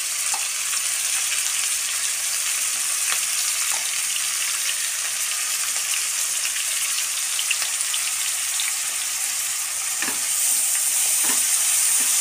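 Chopped onions, green chillies and curry leaves sizzling and crackling in hot oil in a steel pot. About ten seconds in the sizzle gets louder and a wooden spatula knocks against the pot as they are stirred.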